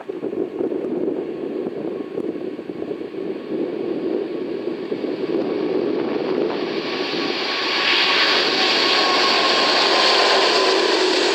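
Jet airliner's engines rushing as it approaches close by, growing louder through the second half, with a thin engine whine.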